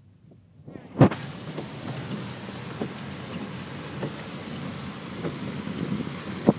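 A sharp knock about a second in, then the steady rushing noise of a car driving along a wet street: tyre hiss and wind, with small knocks here and there.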